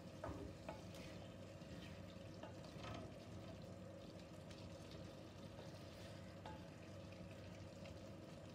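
Faint stirring of tuna roast with a wooden spatula in a kadai, with a few soft scrapes and taps against the pan over a low sizzle, as the fish cooks on low flame in the water it has released.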